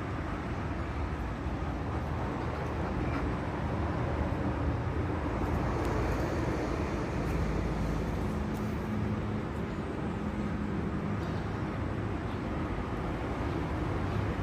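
Steady low rumble of background noise, with a faint hum coming in for a few seconds in the middle.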